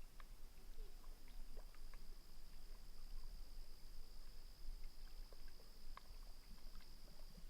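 Faint quiet ambience: a steady thin high-pitched whine with scattered soft ticks and clicks over a low rumble.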